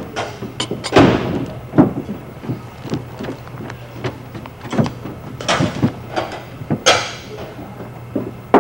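Aluminium cooking pot and its metal lid clattering and clinking as they are handled: a string of sharp metallic knocks, the loudest about a second in and near seven seconds.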